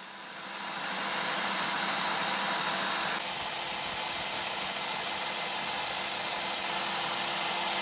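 Wood router at its lowest controller speed, used as a tool post grinder, spinning a grinding stone against the jaws of a turning lathe chuck. It makes a steady, noisy whir that swells in over the first second and drops a little about three seconds in.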